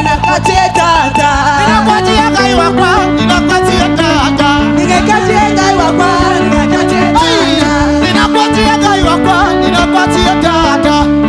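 Loud, upbeat praise dance music with a steady drum beat and bass line. About eight seconds in the drums and bass drop out and the melody carries on.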